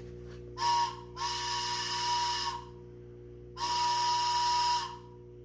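Toy choo-choo train whistle blown three times: a short toot, then two longer toots of about a second and a half each, each a breathy, airy whistle on one steady pitch.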